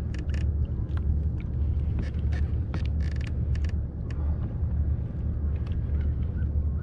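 Steady low rumble of wind buffeting the microphone on open water, with scattered short clicks and a brief rattling buzz about three seconds in from fishing gear on the kayak during a sturgeon fight.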